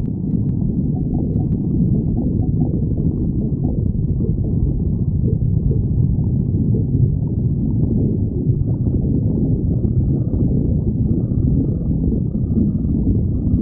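Stomach growling: a continuous low rumble with no break.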